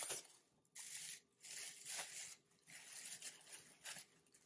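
Plastic bag of turkey wings crinkling and rustling in irregular bursts as it is handled and pulled at to get it open.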